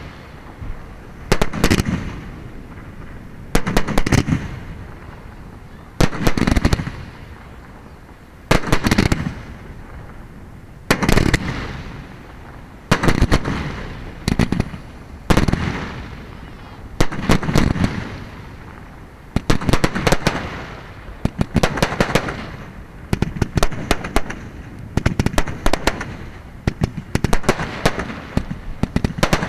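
Display fireworks firing and bursting: a loud bang about every two seconds, each trailing off. In the last third the reports come faster, in quick clusters of cracks.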